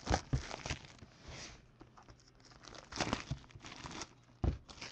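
Clear plastic shrink wrap being torn off a sealed trading-card box and crumpled in the hands, in irregular crackling bursts, with a couple of dull knocks as the box is handled.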